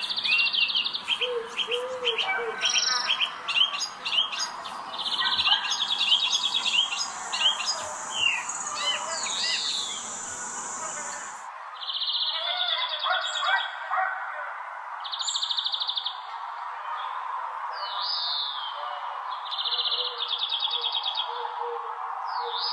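Songbirds singing: short high trills about a second long, repeated every couple of seconds, with scattered chirps in between. A low background rumble cuts out abruptly about halfway through.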